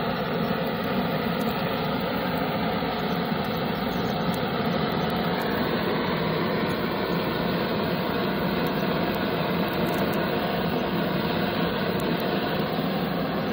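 Butane flame gun burning continuously with a steady rushing hiss.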